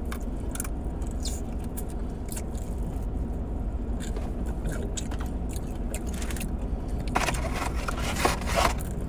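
Steady low rumble of a car's interior, with scattered small crunchy clicks of eating chicken wings and a louder burst of scraping noise lasting under two seconds, about seven seconds in.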